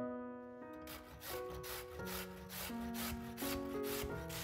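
Raw peeled potato grated on a stainless-steel box grater: even rasping strokes, about three a second, starting about a second in, over soft piano music.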